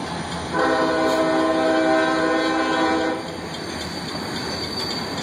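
Union Pacific freight train rolling past on the rails with steady wheel noise. A single long horn blast starts about half a second in, lasts about two and a half seconds, and cuts off.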